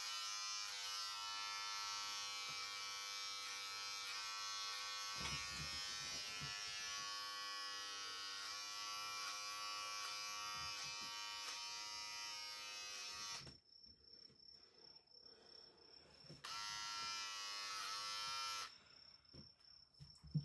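Electric hair clippers buzzing steadily while cutting hair. The buzz stops about two-thirds of the way through, starts again for about two seconds, then stops.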